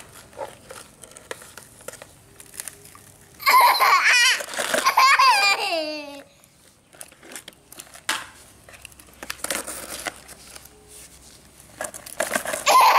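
A toddler laughs and squeals in a high, wavering voice for a couple of seconds, the pitch sliding down at the end, with another short burst near the end. Between them come scattered clicks and clacks of plastic toy excavators handled in sand.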